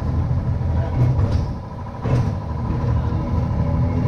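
Vintage streetcar rolling along street rails, heard from inside the open-windowed car: a steady low rumble of wheels and running gear with a steady thin tone, and a few clacks about one and two seconds in.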